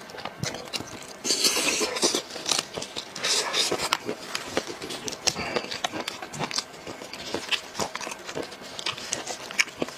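Close-miked mukbang eating sounds: wet chewing, smacking and sucking on braised head meat, mixed with the meat being torn apart by gloved hands. An irregular stream of short wet clicks, loudest between about one and two seconds in.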